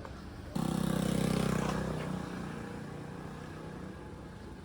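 A motor vehicle's engine running close by, starting suddenly about half a second in and slowly fading away.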